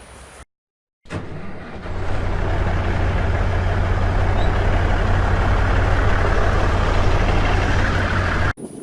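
Diesel engine of a Volvo EC210CL excavator running steadily with a deep hum, building up over the first couple of seconds after a brief gap and cutting off abruptly near the end.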